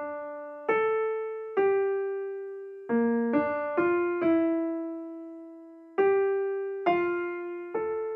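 Background music: a slow solo piano melody of single notes, each struck and left to ring out and fade before the next.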